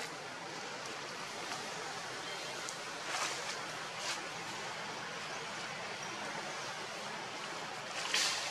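Steady outdoor background hiss, with three brief sharp crackles about three, four and eight seconds in.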